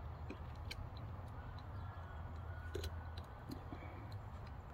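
A few faint clicks and taps of small knife-sharpener parts being fitted together by hand, over a steady low hum.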